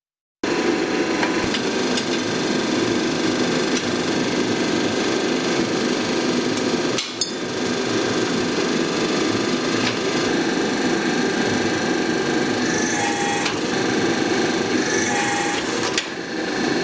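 Mechanically controlled riveting hammer hammering steadily on hot rivets through steel bars, flattening the rivet ends into heads. The sound starts abruptly just after the start and breaks briefly about seven seconds in.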